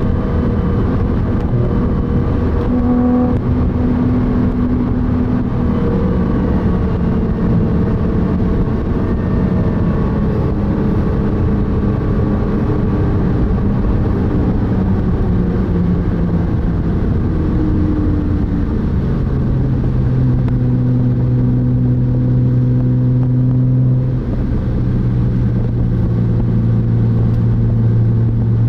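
Car engine heard from inside the cabin while driving hard on a racetrack, its note holding steady and stepping to a new pitch a few times, over constant road and tyre noise.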